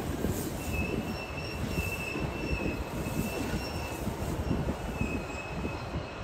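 Steel train wheels squealing on rails: a high, thin squeal that comes and goes over a steady low rumble.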